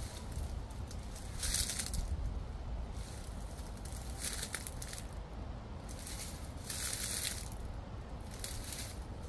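Footsteps crunching through dry fallen leaves, about five crisp crunches at uneven intervals of one to two seconds. A steady low rumble of wind on the microphone runs underneath.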